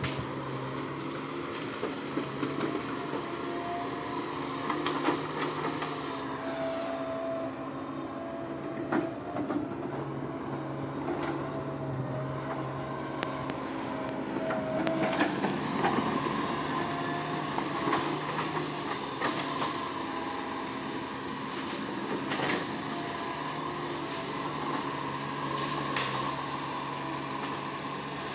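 Diesel engine of a tracked heavy machine running steadily under load, with steel track chains clanking and scattered metallic knocks.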